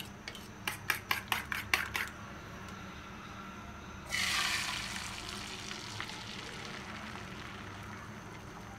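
Quick run of metal clinks, a spoon against a steel bowl as the beaten egg is stirred, then about four seconds in the egg, onion and spice mixture is poured into hot oil in a steel frying pan and sizzles, sharply at first, easing to a steady softer sizzle.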